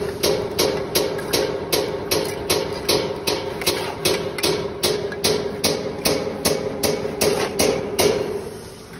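Steel trowel tapping hollow clay bricks down into fresh mortar: an even run of sharp knocks, about two and a half a second, over a steady tone, stopping near the end.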